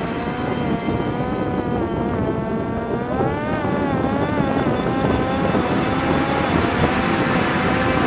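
Parrot Disco fixed-wing drone's electric motor and pusher propeller whining in flight over heavy wind rush. The whine's pitch swings up and down about three to four seconds in, then settles steady.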